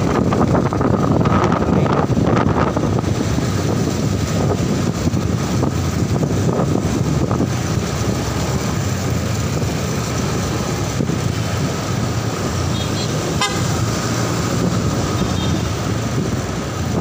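Motorcycle riding through city traffic: steady engine and road noise with wind on the microphone, and a vehicle horn tooting briefly.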